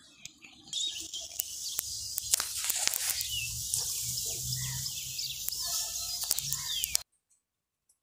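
Outdoor ambience of birds chirping over a steady high-pitched hiss, with scattered clicks. It cuts off abruptly about seven seconds in.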